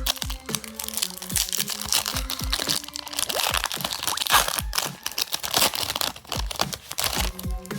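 A trading card pack's wrapper crinkling and tearing as it is opened, heaviest in the middle, over background music with a steady beat.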